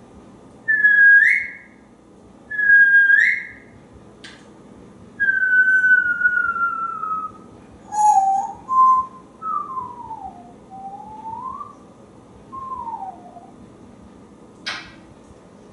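African grey parrot whistling: two short rising whistles, then a long slowly falling whistle, then a string of shorter, lower notes that slide up and down. A sharp click comes near the end.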